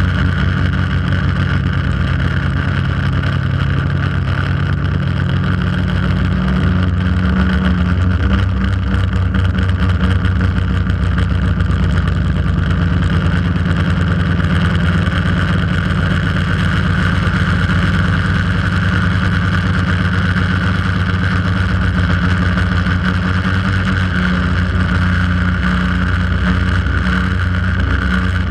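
Quadcopter drone's electric motors and propellers whining steadily, heard from the camera mounted on the drone, with a small shift in pitch about seven seconds in.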